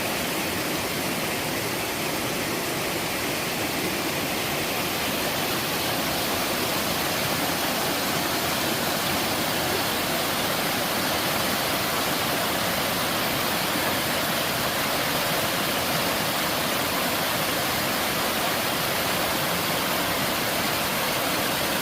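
A mountain-stream waterfall rushing steadily as water slides down a sloping rock face, an even, unchanging rush of water.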